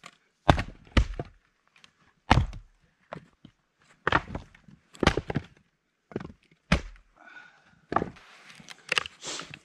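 Two vintage four-pound axes, a Craftsman Hytest and a Plumb Rockaway, splitting firewood rounds on chopping blocks: about nine sharp, irregularly spaced strikes and knocks as the heads bite and split pieces fall, with shuffling in the snow near the end.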